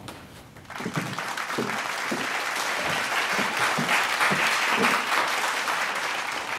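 A small crowd applauding, the clapping starting under a second in and cutting off abruptly near the end.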